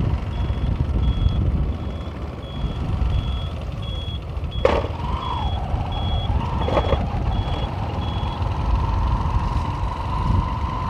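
Motorcycle riding along at steady speed: engine rumble and wind noise on a helmet-mounted microphone. Over it a short, high electronic beep repeats about twice a second for most of the stretch, and a thin wavering tone comes in during the second half.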